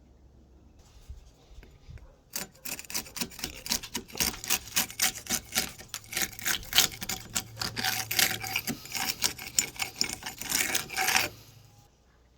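Paintbrush scrubbing bonding primer onto rough cedar wood in quick back-and-forth strokes, several a second, a dry rasping scratch that starts about two seconds in and stops shortly before the end.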